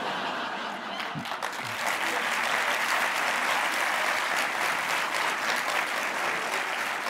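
A large theatre audience clapping, swelling about two seconds in and then holding steady.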